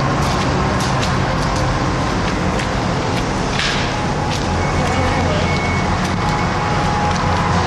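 Steady low rumble of motor traffic carried into a concrete tunnel, with scattered light footsteps and crunches on debris.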